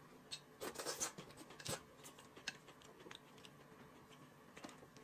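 Faint clicks and scrapes of chopsticks against a plate as noodles are stirred, busiest in the first two seconds.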